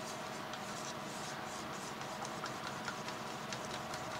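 Faint scraping and light irregular ticks of craft paint being stirred in a small mixing cup, over a steady low hum.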